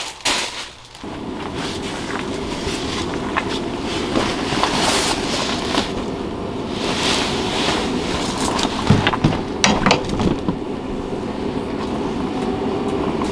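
Paseco fan heater starting up and running: a steady rushing drone from its fan and burner that comes in about a second in, with a few clicks and knocks over it.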